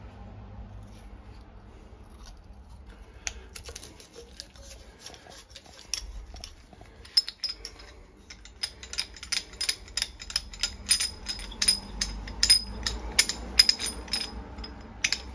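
Copper pipe and metal fittings being handled, giving a run of sharp metallic clicks and light rattles. They are sparse at first, then come two or three a second from about seven seconds in, many with a short high ring.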